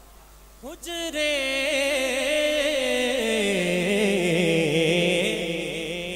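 Man singing a naat, holding one long wordless note with a strong wavering vibrato that starts about a second in. Partway through, the pitch slides lower, amplified through a handheld microphone.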